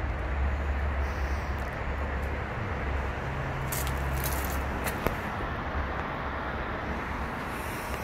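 Steady roar of road traffic with a low rumble, and a single sharp click about five seconds in.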